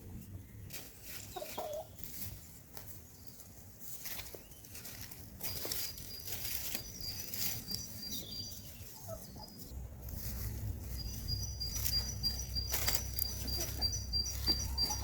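Chickens clucking now and then among many small sharp clicks and scratches. A high thin pulsing tone comes and goes, and a low steady rumble sets in about two-thirds of the way through.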